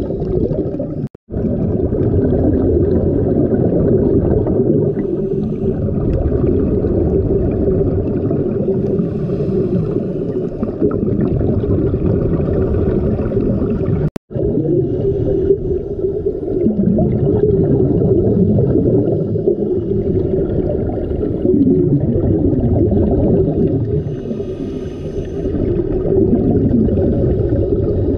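Underwater sound picked up by an action camera in its waterproof housing during a scuba dive: a steady, muffled rumble with bubbling and wavering low tones from the water and the divers' breathing. It cuts out briefly twice, once about a second in and once about halfway through.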